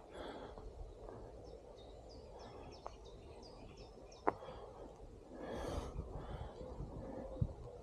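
Outdoor ambience with small birds chirping in short high notes, two sharp clicks about three and four seconds in, and a brief rush of noise about five and a half seconds in.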